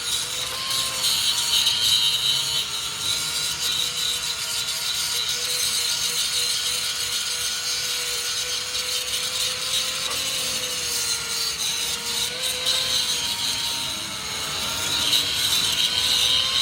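Power tool working on a truck chassis: a steady motor whine that wavers slightly under load, over a harsh hiss.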